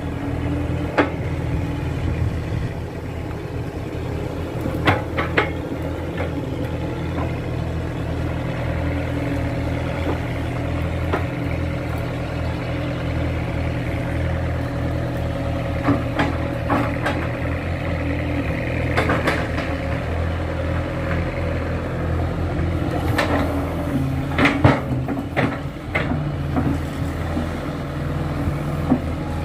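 Kato crawler excavator's diesel engine running steadily, with scattered sharp knocks from the machine, several close together about 23 to 26 seconds in.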